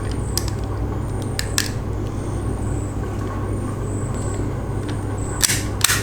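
A few light clicks and taps from handling a small die-cast metal toy Jeep, its opening doors and body being worked by hand, with a tighter cluster of clicks near the end, over a steady low electrical hum.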